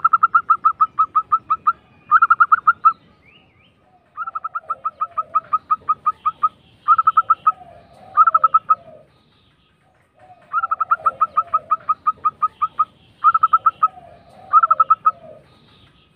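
Zebra dove (perkutut) song: fast, rolling runs of staccato cooing notes. Three phrases, each a long run followed by one or two short bursts, with a lower bubbling coo running under the later ones.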